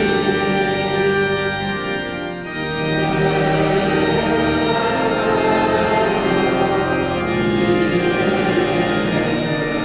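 Church pipe organ playing a hymn tune in sustained full chords, with a short drop in level about two seconds in.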